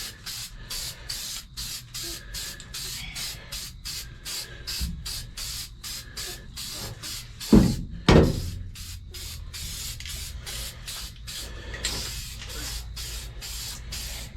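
Spray paint hissing in many short, quickly repeated bursts while the frame is painted. Two loud thumps about half a second apart come about halfway through.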